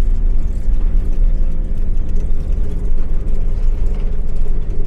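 Motorhome engine running steadily under load as it climbs a steep 1-in-4 hill, heard from inside the cab, with a deep road rumble beneath it.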